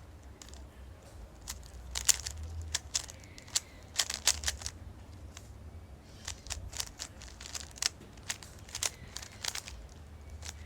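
Plastic Rubik's Cube being turned quickly during a solve: its layers click in rapid runs of several turns, with short pauses between the runs.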